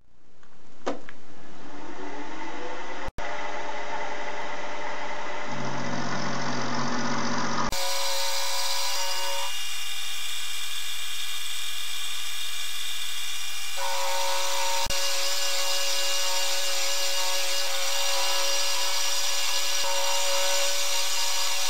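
Milling machine cutting a steel block with an end mill: a steady motor and spindle whine over the hiss of the cut. It drops out briefly about three seconds in, and near eight seconds it turns abruptly brighter and harsher.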